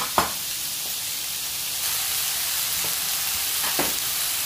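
Button mushrooms sizzling as they fry in a pan, a steady hiss. A chef's knife strikes a wooden cutting board once just after the start as rosemary is chopped, and a single knock comes near the end.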